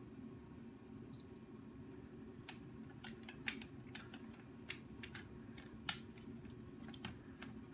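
Irregular sharp plastic clicks and taps from handling the parts of a disassembled HyperFire dart blaster, starting a couple of seconds in, with a few louder snaps, over a faint steady hum.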